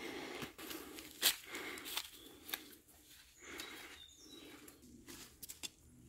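Footsteps on a forest path, with leaf litter and undergrowth rustling underfoot, heard as irregular sharp clicks and rustles.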